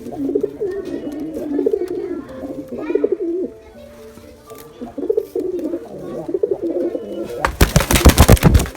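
Pigeons cooing in repeated low, wavering coos, with a lull around the middle. Near the end comes a loud burst of rapid sharp strokes lasting about a second, the loudest sound here.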